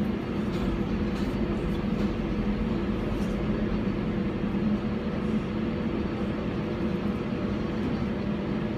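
Subway train running, heard from inside the car: a steady rumble with a low, even hum.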